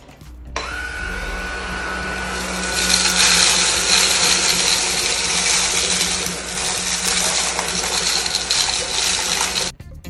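Redkey F10 cordless stick vacuum switching on about half a second in and running with a steady whine. It grows louder about three seconds in as it sucks up grain and seeds scattered on a tile floor, then cuts off near the end.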